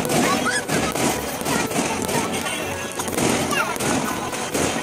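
Aerial fireworks going off in a quick run of bangs and crackles, over crowd voices and music.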